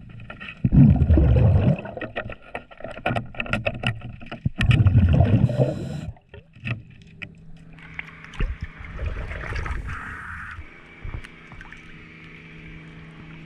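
A scuba diver's regulator underwater, exhaled bubbles rumbling in two loud bursts about four seconds apart, with sharp clicks and knocks of tools on the trim tab between them. About halfway through the diver surfaces, and water sloshes and hisses over a steady low hum.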